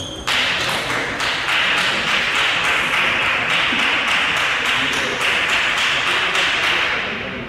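Celluloid-type table tennis balls striking bats and tables: many sharp taps, about several a second, from this and neighbouring tables, over a steady hiss.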